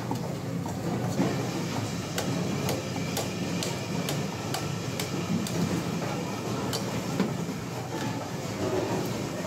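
Repeated short clicks and knocks of a large katla carp being cut on a bonti, a big curved blade fixed upright on a wooden base, over a steady low background hum.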